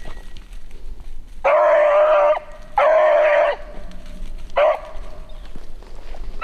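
Beagle puppy baying on a rabbit's track: two long bays of about a second each, then a short one. The baying is the sign that the hound has the rabbit's scent and is running it.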